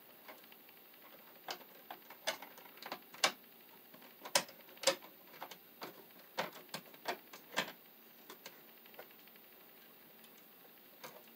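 Ground wires clicking and scraping against each other and the plastic electrical box as they are gathered and straightened by hand: a run of irregular sharp ticks that thins out after about eight seconds.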